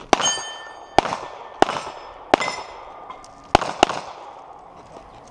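Six pistol shots at uneven spacing, two of them close together near the end. A steel target rings for about a second after the first shot.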